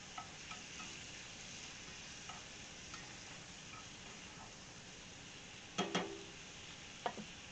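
Asparagus frying in butter in a pan: a steady low sizzle with a few faint ticks, and a couple of brief louder sounds about six seconds in and once more shortly after.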